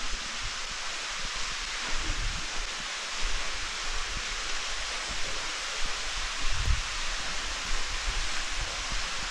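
Steady forest ambience: an even hiss of leaves rustling in the wind, with irregular low bumps, the loudest about six and a half seconds in.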